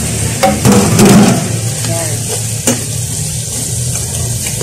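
Raw chicken feet sizzling in hot oil with sautéed garlic and onion in an aluminium pot, stirred with a metal ladle. The ladle knocks and scrapes against the pot a few times, loudest about a second in.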